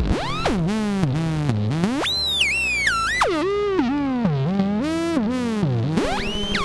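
Buchla and Eurorack modular synthesizer music: a single bright, pitched voice swooping up and down in continuous glides. About two seconds in it leaps high and slides down in steps, drops back low after about a second, and sweeps sharply upward again near the end.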